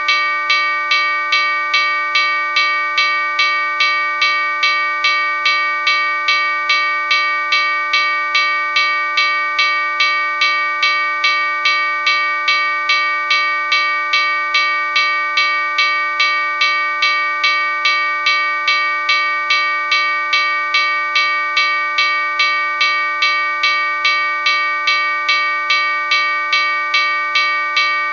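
Locomotive bell ringing in an even, unbroken rhythm of about two strikes a second, each strike ringing on into the next.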